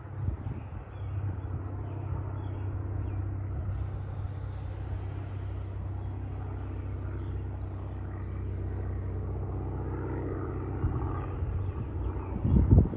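Single-engine propeller plane towing a banner, its piston engine and propeller droning steadily overhead. A brief louder low rumble comes near the end.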